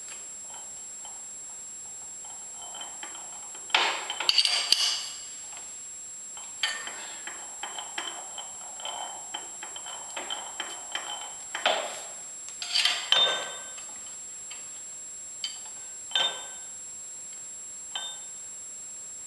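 Metal clinking and ticking from a lathe's steel change gears and a wrench on their studs as a gear is fitted and its backlash set. A louder clatter about four seconds in, a run of small ticks for several seconds after, another clatter around thirteen seconds, then a few single clicks.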